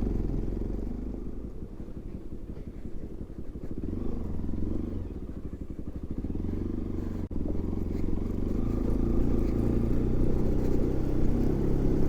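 Bajaj Pulsar NS200's single-cylinder engine pulling at low revs over a rough dirt track, chugging for the first half and then picking up to a steadier, higher note. There is one sharp click about seven seconds in.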